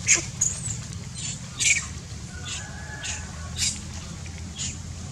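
Macaques squeaking: a string of short, high-pitched squeaks spaced irregularly about half a second to a second apart, over a steady low rumble.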